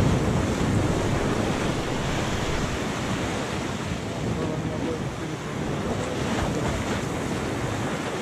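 Sea surf breaking and washing over the rocks in a steady rush, with wind buffeting the microphone.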